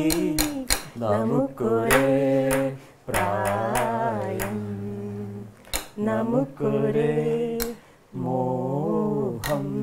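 People singing a song together without accompaniment, in long held, wavering notes with short breaks between phrases, and some sharp clicks mixed in.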